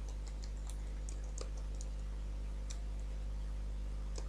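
Computer keyboard keystrokes: a dozen or so scattered, uneven clicks as a line of code is typed, over a steady low electrical hum.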